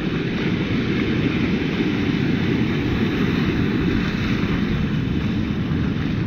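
Steady rush of wind buffeting the microphone over shallow surf washing in and out.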